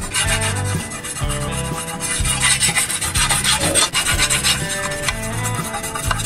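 Gritty rasping scrape of a small metal bar rubbed rapidly back and forth over a paste-smeared steel cleaver blade.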